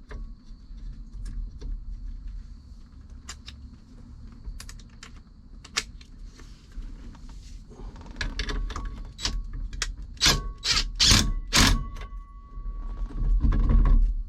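Scattered clicks and clinks of hand tools and small metal parts being handled while fitting bolts to a steering wheel hub, with a cluster of several louder knocks about ten to twelve seconds in.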